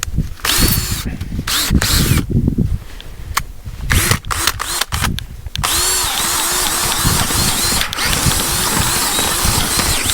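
Power drill boring a hole in the soil for a trap set. It runs in short bursts at first, then steadily from about halfway, its pitch dipping and recovering about three times a second as the bit bites into the dirt.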